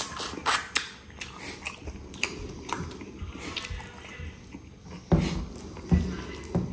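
Close-up mukbang eating: a person chewing and biting mutton and rice, with irregular wet smacking clicks and a few louder low thumps in the second half.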